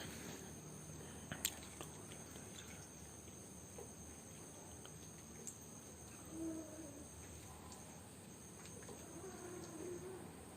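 Crickets chirping steadily, with a few sharp clicks (the loudest about a second and a half in) and two short, faint wavering calls in the second half.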